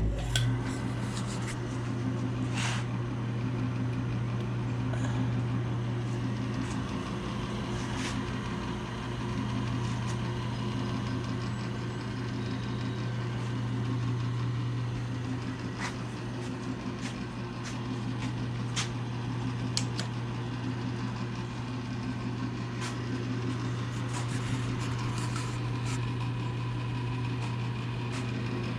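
Restored 1957 Diamond horizontal milling machine switched on and running, its motor and gear train giving a steady hum with scattered light clicks.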